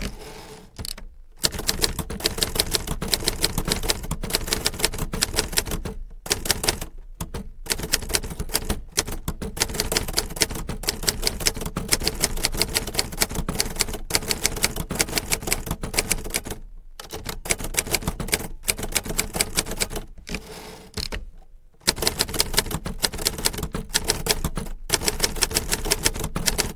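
Typewriter keys striking in rapid, continuous runs, broken by a few brief pauses.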